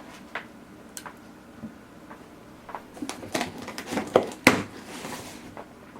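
A parts package being handled: scattered rustles and clicks, the loudest about four and a half seconds in.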